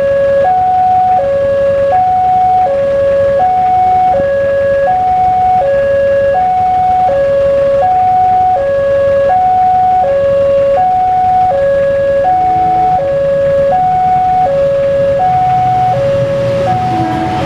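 Railway level-crossing warning alarm sounding from its horn loudspeaker: an electronic two-tone signal alternating steadily between a high and a low note, each held about three quarters of a second, warning that a train is coming. Near the end, the rumble of the approaching train rises underneath it.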